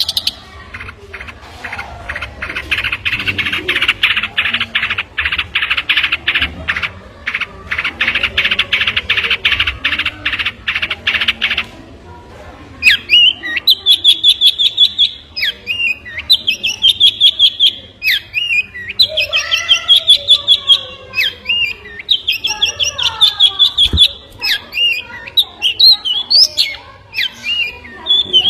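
A songbird singing. It opens with a long run of rapid, evenly repeated chattering notes that stops about twelve seconds in, then after a short pause goes on with a varied song of high trills and whistled notes that sweep up and down in pitch.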